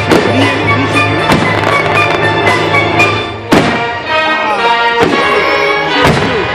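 Music playing loudly with aerial firework shells bursting over it: about five sharp bangs, the sharpest about halfway through.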